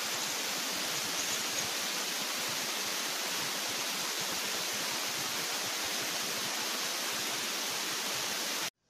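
Steady, even static-like hiss from the recording itself, with no other sound standing out. It cuts off abruptly a moment before the end.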